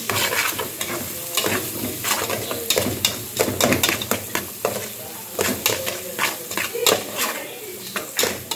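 A spoon scraping and knocking against the inside of an aluminium pot in quick, irregular strokes while stirring garlic, onion and bell pepper frying in oil, over a steady sizzle.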